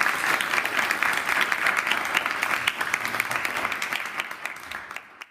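Audience applauding, the clapping thinning out near the end and then cutting off suddenly.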